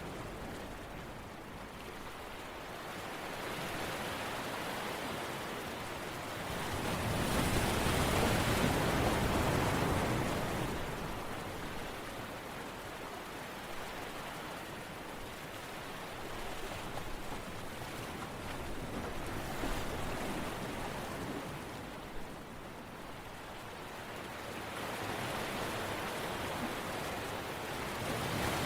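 Ocean waves washing in and drawing back in slow swells, the largest peaking about eight seconds in and another building near the end.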